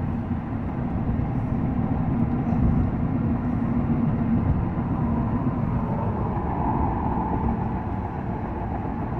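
Inside a 2001 Ford Crown Victoria at highway speed on a long downgrade: a steady rumble of tyres and road with the V8 humming, its overdrive off so the engine is braking the car. A faint steady tone sits under the roar in the first half, and a higher hum comes up later.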